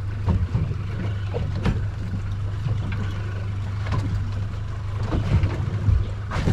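Steady low hum of a fishing boat's engine idling, with scattered low knocks and wind buffeting the microphone.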